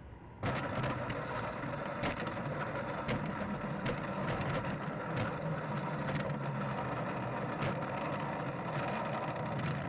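Habu 32's electric ducted fan running with a steady whine, picked up by the keychain camera on the airframe; it starts abruptly about half a second in. Occasional sharp clicks sound over it.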